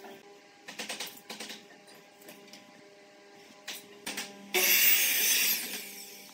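Ryobi sliding miter saw crosscutting a wooden board: a single loud burst of blade noise about four and a half seconds in, lasting just over a second.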